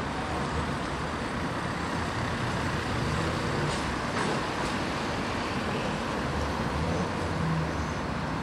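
Double-deck heritage electric tram running slowly round a curve of track, a steady low running noise from its motors and wheels on the rails, with a few faint clicks about four seconds in.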